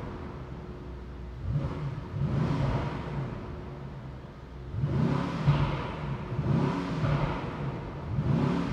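Brabus Rocket 900's 4.5-litre twin-turbo V8 being revved while the car stands still, with its exhaust valves opened in Sport Plus mode. It revs up in several separate pulls, dropping back toward idle between them.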